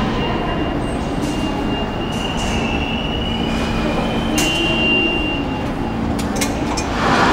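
New York City subway train heard through the station: a steady rumble with a thin, high wheel squeal over it, swelling louder near the end. A few sharp metal clicks partway through come from the turnstile being pushed.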